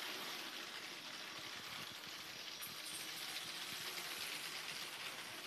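Motorised LEGO train with open passenger carriages running along plastic LEGO track: a steady whirring, rolling noise from the motor and wheels.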